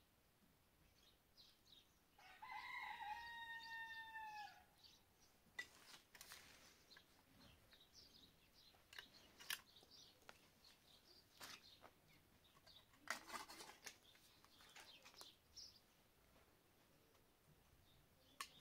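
A rooster crows once, a single long call starting about two seconds in and dropping in pitch at the end. Around it, light scattered clinks of a metal spoon against a jam jar and plates.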